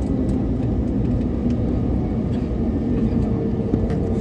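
Airliner's engines and airflow, a steady low rumble with a faint steady hum.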